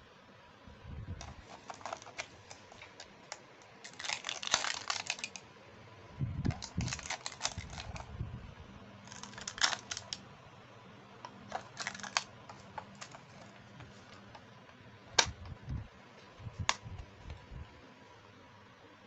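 Small plastic toy pieces clicking and rattling as they are handled, in short bursts of rapid clicks, with two sharp single clicks near the end.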